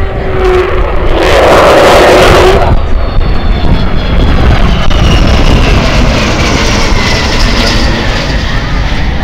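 Avro Vulcan bomber's four Rolls-Royce Olympus jet engines flying past: a loud rush about a second in, then the Vulcan's high howl, falling steadily in pitch as it goes by.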